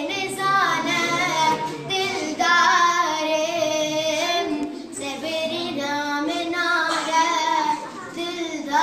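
A boy singing a Kurdish song in a high voice, holding long wavering notes.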